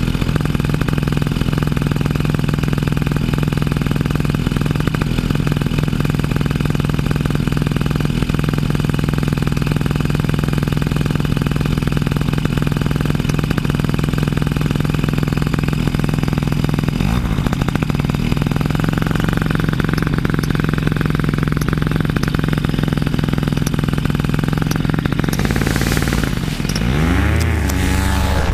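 Paramotor engine running steadily at a constant throttle, loud and close. Near the end its pitch swings up and down.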